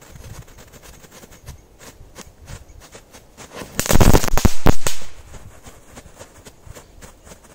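Thrown firecrackers going off on the ground: scattered small crackles as the fuses burn, then a loud, rapid cluster of bangs about four seconds in lasting about a second.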